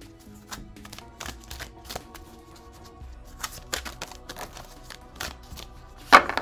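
A deck of oracle cards shuffled by hand, with repeated soft card clicks and slides over the wooden table and steady background music. A sharp knock on the table about six seconds in is the loudest sound.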